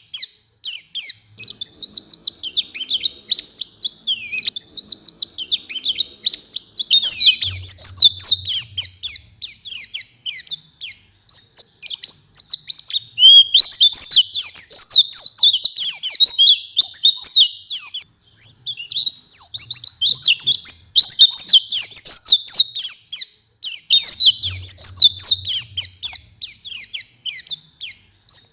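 White-eye (pleci) singing in long, rapid twittering phrases, high-pitched and fast, broken by brief pauses of about half a second to a second.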